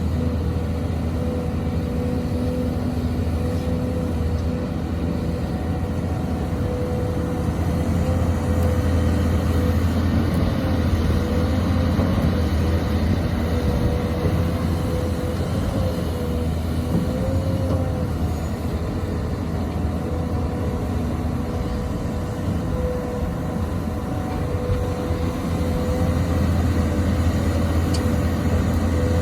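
XCMG XE215C hydraulic excavator working, its diesel engine running steadily with a low drone and a whine that wavers slightly in pitch.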